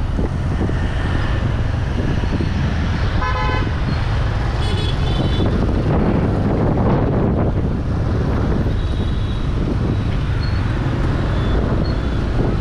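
Steady road traffic noise with a vehicle horn sounding briefly twice, about three seconds in and again about five seconds in, and a fainter horn later.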